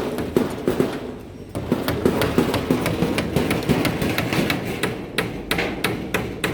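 Hammers striking during roof repair: rapid, uneven blows, with a short pause about a second in.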